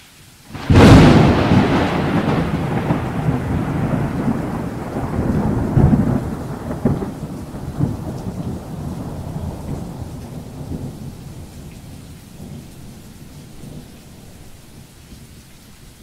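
Thunder with rain: a sudden loud clap about a second in, a couple more rumbles a few seconds later, then a long fade.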